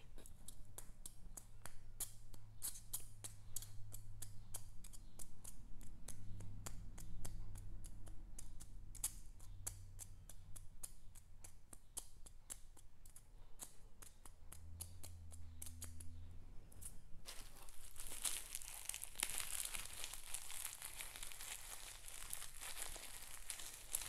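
Unpacking noise: polystyrene foam packing blocks scraping and squeaking against a cardboard box, with many small clicks and knocks. Then, for the last several seconds, a denser crinkling of plastic wrapping as a wrapped bag of pebbles is lifted out.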